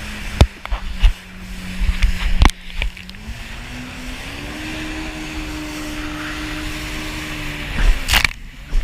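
Yamaha jet ski engine running steadily, its pitch rising about three seconds in as it speeds up, then holding. Sharp thumps come in the first few seconds, and a loud rush of wind or spray comes near the end.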